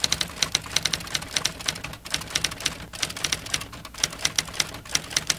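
Rapid, uneven clicking and tapping, several sharp clicks a second, over a faint low hum.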